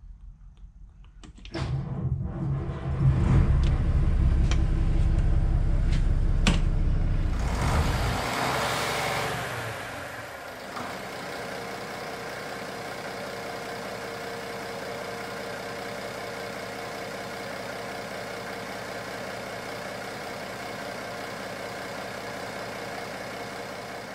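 Ship's diesel engine starting up. It comes in suddenly about one and a half seconds in and runs loud and rough for several seconds. A brief hiss follows, then it settles to a steady idle.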